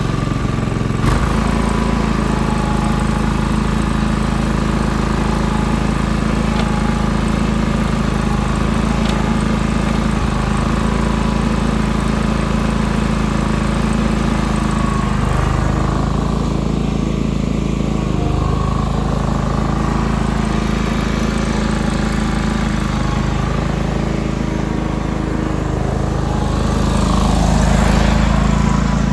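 John Deere 425 garden tractor's liquid-cooled two-cylinder Kawasaki FD620D engine running steadily just after starting, growing somewhat louder near the end.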